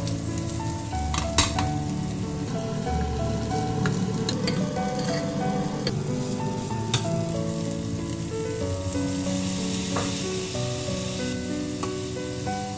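Chinese celery and pressed tofu strips sizzling in hot oil in a wok as they are stir-fried with a spatula, with a few sharp clicks of the spatula against the pan. Light background music plays underneath.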